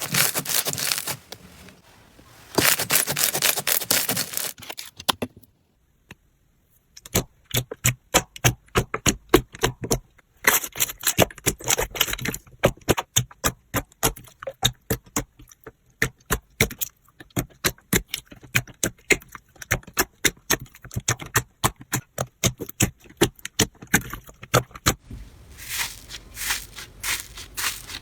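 Slime being squeezed and pressed by hand, crackling densely, then after a brief gap a long run of sharp pops and clicks as the slime is worked, with crackling again near the end.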